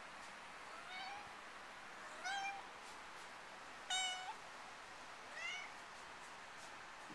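Black-and-white kitten meowing four times, short high calls a second or so apart, the third the loudest.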